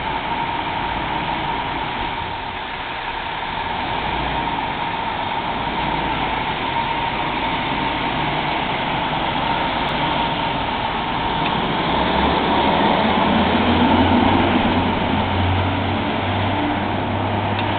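Heavy diesel engine of a fire department ladder truck running as it pulls out of the station, its engine note rising and getting louder a few seconds from the end as it accelerates away. A steady high-pitched hum sits underneath throughout.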